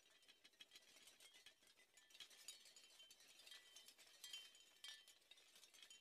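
Seashell wind chime swaying in the wind: the shells knock together in many quick, light, irregular clinks with a short chime-like ring, faint throughout and busier after about two seconds.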